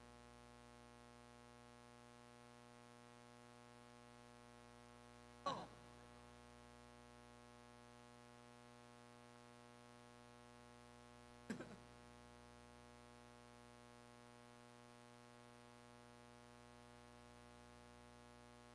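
Near silence with a steady low electrical hum, broken twice by a brief knock about six seconds apart.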